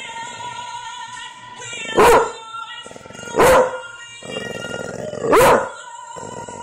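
A pit bull-type dog barks three times, the barks about a second and a half to two seconds apart, over a song playing throughout.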